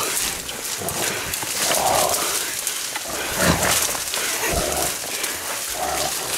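A hunting dog barking several times at a bailed-up wild boar, over the crackling rustle of grass and dry stems brushed close against the microphone.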